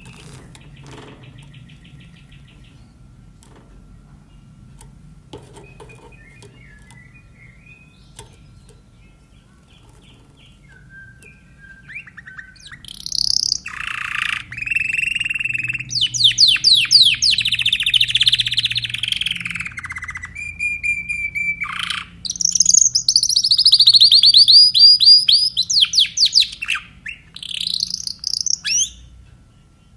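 Timbrado canary singing: faint scattered chirps at first, then about twelve seconds in a loud song of rapid rolling trills and repeated notes, some phrases falling in pitch, stopping just before the end.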